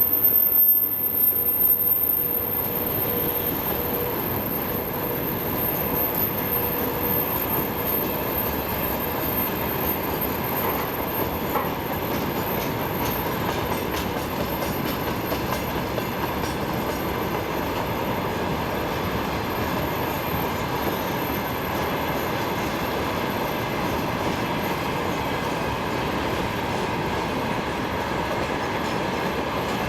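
Freight train hauled by a VL80S electric locomotive rolling past, a steady clatter of wagon wheels on the rails with some wheel squeal. It is loudest in the first couple of seconds, then settles into an even rolling noise.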